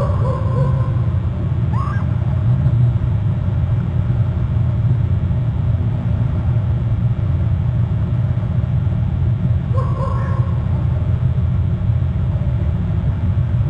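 A steady low rumble with a few brief chirp-like calls: one at the start, one about two seconds in that rises sharply in pitch, and one near ten seconds.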